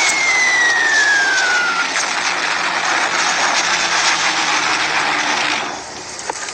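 Air-raid sound effects: a falling bomb's whistle, dropping steadily in pitch, ends about two seconds in, over a loud, dense rush of aircraft noise that falls away sharply near the end.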